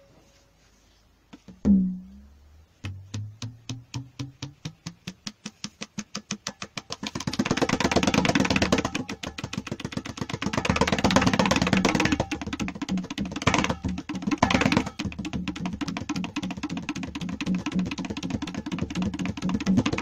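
Tabla and bayan played to imitate an Eicher tractor's engine. After a single low bayan stroke with a falling pitch, separate strokes begin and quicken. About seven seconds in they become a fast, dense, continuous roll, like the engine running.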